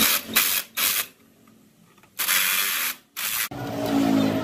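Cordless impact driver run in short trigger bursts, driving bolts into a saw's base: three quick bursts, a pause of about a second, then two more.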